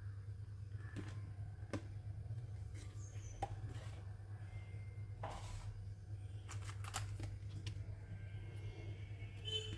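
Scattered clicks and taps with a short rustle, from a mechanical keyboard and its packaging being handled, over a steady low hum. A quick run of several clicks comes about two-thirds of the way through.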